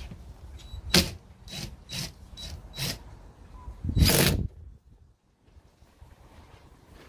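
Cordless drill run in five short bursts, then one longer burst about 4 s in, as it fastens a metal mounting plate to the van's roof rib.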